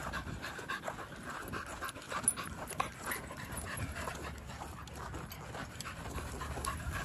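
A dog panting hard after running, with scattered light clicks and rustles.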